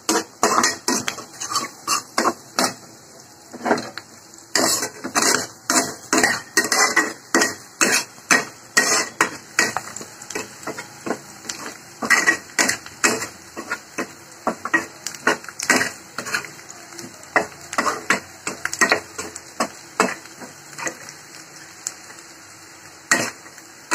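Flat steel spatula scraping and knocking against a kadhai in quick, irregular strokes while stirring onions, peanuts and curry leaves frying in oil, with a faint sizzle underneath.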